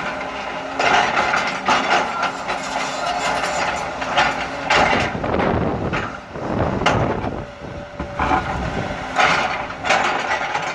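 Excavator bucket scraping and clanking against concrete and rubble while digging for the edge of a footer, irregular grinding and knocks over the engine, heavier scraping around the middle.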